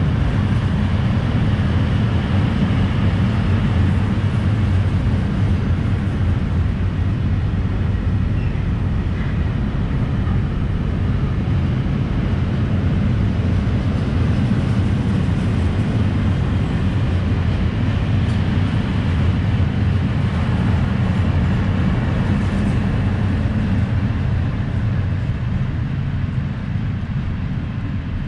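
Freight train of open coal wagons rolling past: a steady low rumble of steel wheels on rail. It eases off near the end as the last wagons pull away.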